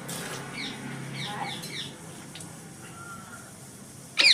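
Ring-necked parakeet calling: a run of short chirps, then one loud harsh screech near the end.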